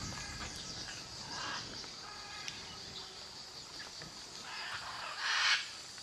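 Rainforest ambience in a downpour: steady rain hiss under a constant high insect drone, with faint chirps early on and a short louder swell of rushing noise about five seconds in.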